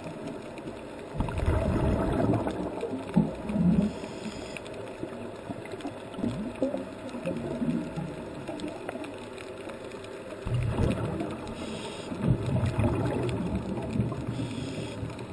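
A scuba diver's exhaled bubbles gurgling past an underwater camera, in two louder stretches about a second in and about ten seconds in. Between them is quieter regulator breathing, heard muffled through the water.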